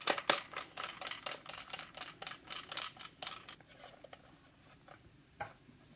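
Quick run of small clicks and scrapes as a screwdriver and hands work the plastic case of a Kill-A-Watt power meter, screwing it back together. The clicking thins out after about four seconds, with one sharp click near the end.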